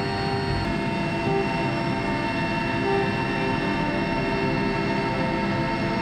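Helicopter cabin noise during lift-off and climb: a steady drone of turbine engines and rotor with a whine of several steady high tones over a dense low rumble.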